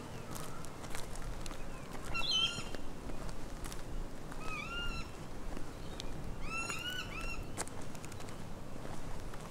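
Bird calling in short clusters of arched, whining notes, two or three at a time, over scattered clicks of footsteps on a bush track.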